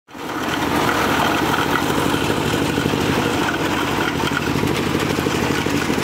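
An engine running steadily with a fast, even pulse. It fades in at the start and cuts off abruptly at the end.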